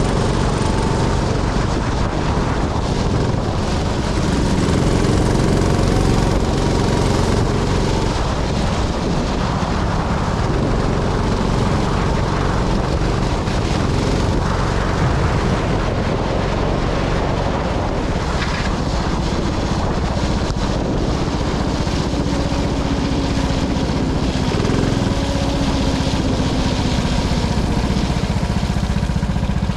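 Go-kart engine heard on board, its pitch rising and falling as the kart accelerates and slows around the track.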